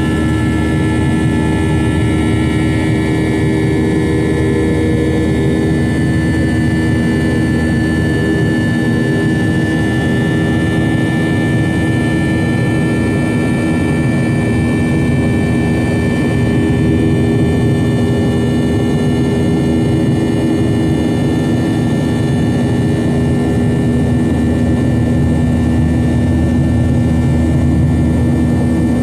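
Cabin noise of a Boeing 737-800's CFM56-7B jet engines running steadily: a constant rush with several whining tones that drift slightly in pitch.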